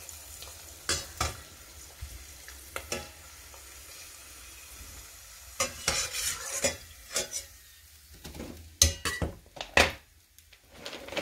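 A cracker frying in hot oil in a stainless steel pot, with a faint sizzle. A metal slotted spatula clicks and scrapes against the pot several times, loudest near the end.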